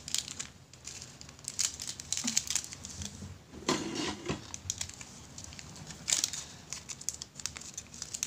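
Plastic packaging crinkling and rustling as it is handled, in irregular bursts, louder about a second and a half, four and six seconds in.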